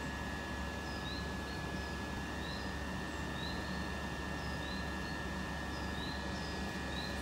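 Class 377 Electrostar electric multiple unit standing at the platform, its equipment giving a steady low hum with a thin, steady high whine. A bird repeats short rising chirps about once a second.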